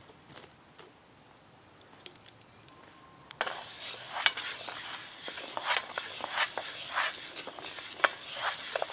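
Wooden spoon stirring oat groats as they toast in a hot pan, a hissing rustle of grains with scattered clicks. It starts suddenly about three and a half seconds in, after a few faint ticks.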